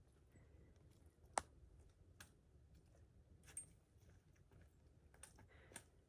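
Near silence broken by a few faint, scattered clicks and taps, the sharpest about a second and a half in: trekking pole tips striking the dirt-and-rock trail as a hiker walks.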